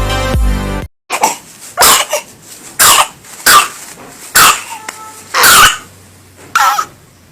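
A baby coughing, a string of about eight sharp coughs with short gaps, the one near the middle longer than the rest. Electronic music cuts off about a second in, just before the coughing starts.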